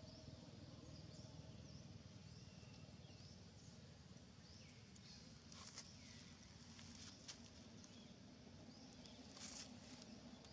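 Near silence: faint outdoor ambience with short, high chirps repeating every half second or so, and three soft rustles in the second half.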